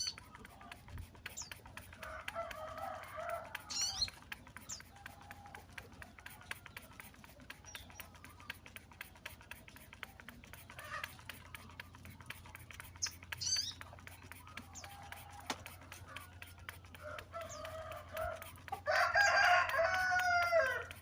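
A rooster crowing loudly once near the end, with a fainter crow about two seconds in. Short high bird chirps are heard now and then between the crows.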